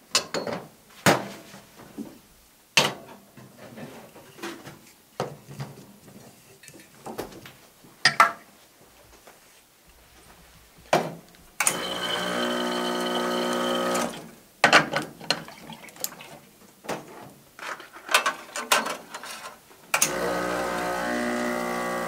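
Espresso preparation clatter: metal portafilter and tamper clicking and knocking. The espresso machine's pump buzzes steadily for about two seconds while water flushes through the group head. The buzz starts again near the end as the shot is started.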